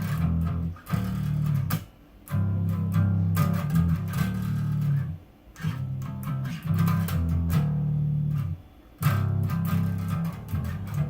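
Bass guitar playing a phrase of sustained low notes from the song's ending. Short breaks separate the notes, with string and fret noise.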